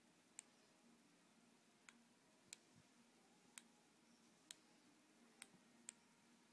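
Faint, sharp clicks, about seven at irregular intervals against near silence: the button of a handheld laser pointer being pressed on and off.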